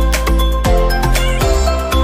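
Electronic background music with a deep kick-drum beat and held synth notes.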